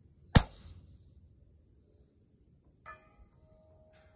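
A logo sound effect: one sharp, loud hit about half a second in with a ringing tail that dies away, then a faint held ringing tone for about a second near the end.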